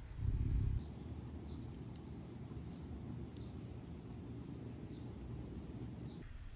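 Steady outdoor background noise with short, high, falling chirps repeating every half second to a second, after a brief low rumble at the start.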